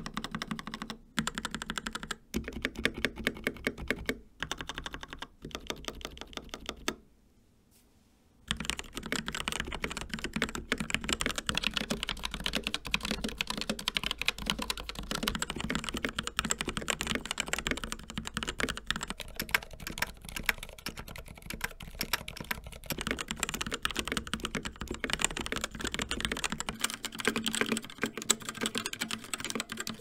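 CZC Reaper mechanical keyboard with TTC Red linear switches being typed on: first several short separate runs of key clicks with brief pauses, then after a short silence continuous, fast typing from about eight seconds in. A few seconds before the end the tone of the typing changes as a Reaper fitted with Kailh Red switches takes over.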